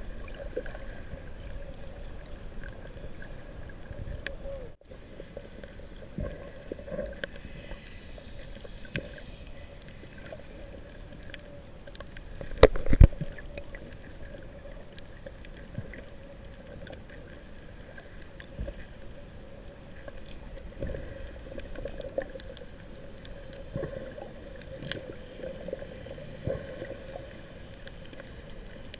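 Muffled underwater sound through an action camera held below the surface: water sloshing and gurgling, with scattered small clicks and one sharp knock a little before halfway.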